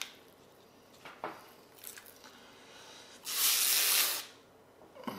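Clear protective plastic film being peeled off a pocket projector's glossy casing: one hissing rip lasting about a second, a little after halfway, with a few faint plastic crinkles before it.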